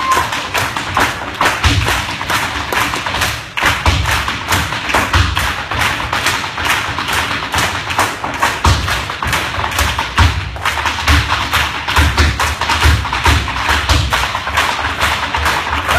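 Irish dancers' hard shoes beating rapid, dense step rhythms on a wooden floor, sharp taps over heavier heel and toe thuds, with a brief lull about three and a half seconds in.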